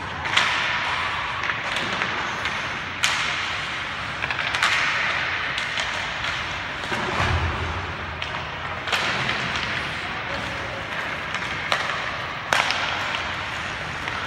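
Ice hockey in play heard from the stands: the scrape of skates on the ice and the clack of sticks and puck, with sharp cracks of puck on stick or boards about three seconds in and again near the end. Spectators talk underneath.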